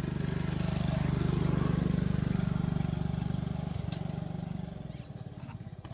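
A small engine running with a steady pulsing note, growing louder to about two seconds in, then easing off.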